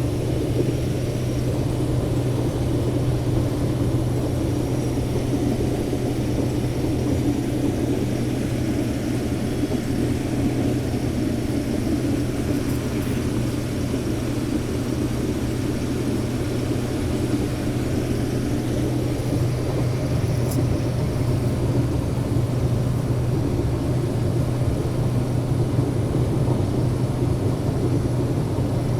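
Case IH 2388 combine running steadily while harvesting corn, a constant engine and threshing drone with a strong low hum, heard from inside the cab.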